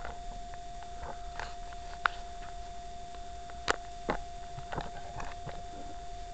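Handling noise from a camera being picked up and carried: scattered clicks, knocks and rustles, the sharpest about two seconds and just under four seconds in, over a steady faint high hum.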